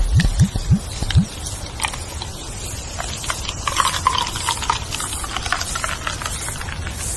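Wind rustling leaves, with a steady low wind rumble and many small crackling clicks throughout. There are a few quick low swooping sounds in the first second and short chirps near the middle.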